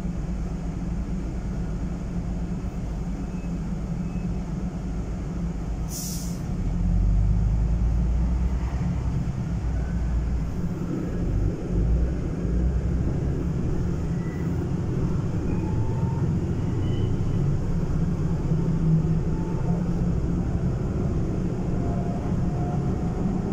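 Interior sound of a Van Hool NEW AG300 articulated city bus. A short hiss of compressed air comes about six seconds in. The diesel engine then grows louder as the bus pulls away and drives on, with faint rising whines later.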